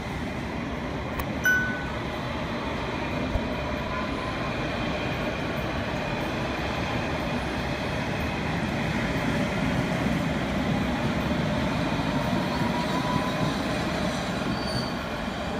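Train running on rails: a steady rumbling noise that swells a little toward the middle, with faint high wheel squeals and a brief sharp ping about a second and a half in.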